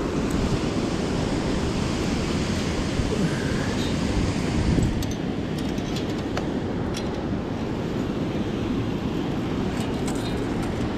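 Steady rush of fast-flowing river water mixed with wind buffeting the microphone, with a few light clicks partway through.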